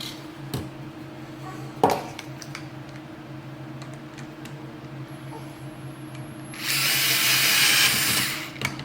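Power drill running in one loud burst of about two seconds near the end, with a faint high whine just before it. Earlier there is a sharp knock about two seconds in, over a steady low hum.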